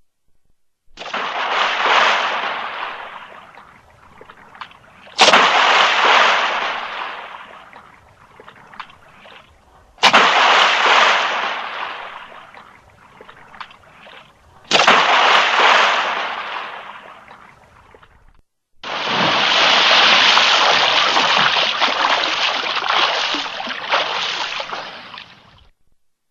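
A series of bodyfall sound effects into water: four separate splashes, each sudden and dying away over two to three seconds, then a longer stretch of churning splashing lasting about seven seconds.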